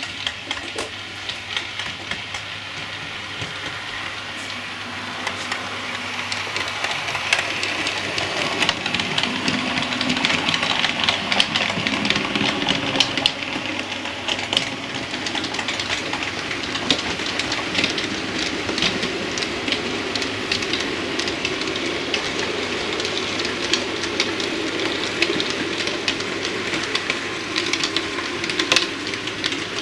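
Model railway goods train running along the track, its wheels clicking over the rail joints, growing louder over the first several seconds as it comes closer and then running on steadily.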